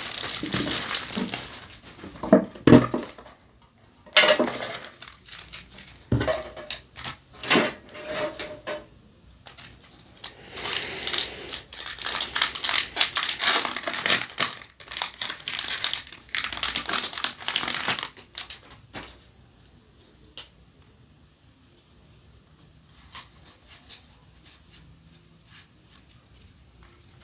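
Plastic shrink wrap crinkling in bursts as it is peeled off a metal trading-card tin, with a few sharp knocks. About ten seconds in, a foil booster pack crinkles and tears for several seconds as it is ripped open. Then only faint ticks of cards being handled.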